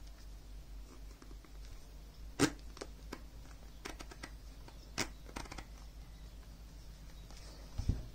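Sharp plastic and metal clicks and taps as headphone parts, an aluminium earframe fork and its retainer, are handled and snapped together. The loudest clicks come about two and a half seconds in and at five seconds, with a low knock near the end, over a faint steady low hum.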